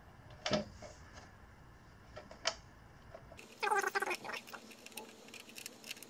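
Small clicks and taps of a screw and fingers on the metal deck of an electric scooter as the screw is threaded in by hand, with a short cluster of rapid clicks a little past halfway through.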